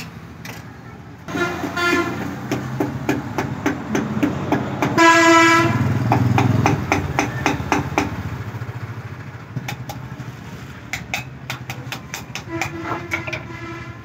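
Repeated knocks of a hammer tapping a cylinder liner down into a tractor engine block. About five seconds in, a horn sounds loudly for just under a second.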